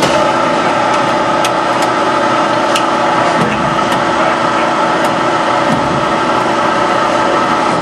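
Maren horizontal baler running: a steady hydraulic and machinery drone. Its note shifts at the start, as the machine moves into a new part of its cycle, and shifts back near the end. A few light clicks come in between.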